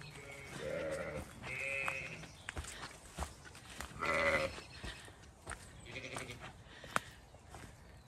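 Zwartbles ewe and lambs bleating, four calls about half a second, a second and a half, four and six seconds in, the one about four seconds in the loudest, with light clicks of footsteps on the ground between them.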